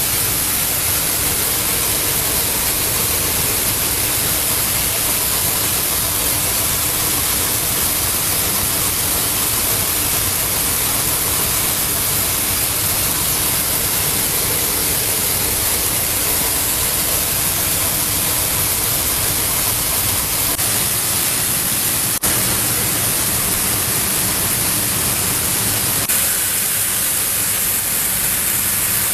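Coffee bean color sorter running: a steady, loud hiss of machine noise, with a single sharp click late on.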